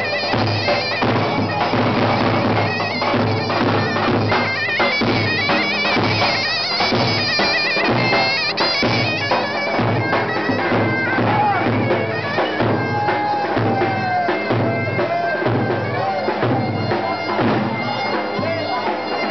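Zurna and davul playing a dance tune: the double-reed zurna's wavering, ornamented melody over regular beats of the big bass drum.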